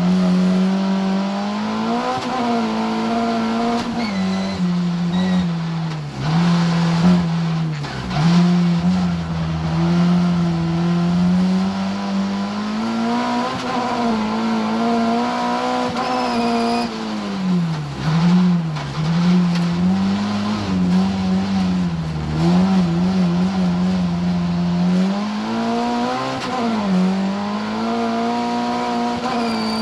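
Racing car's engine heard from inside the cabin under hard driving, the revs climbing and dropping repeatedly through corners and gear changes, with tyre and loose-surface noise and scattered small knocks under it.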